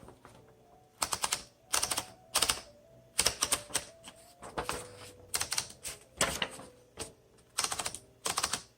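1954 Smith Corona Skyriter manual travel typewriter being typed on: quick runs of typebar strikes hitting the paper, in bursts of several keys with short pauses between.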